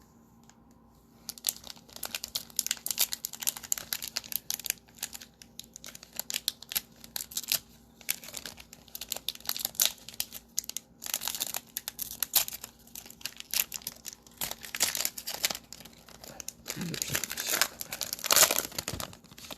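An NBA Hoops Premium Stock trading-card pack wrapper being crinkled and torn open by hand. A dense crackling starts about a second in, with louder rips around the middle and near the end.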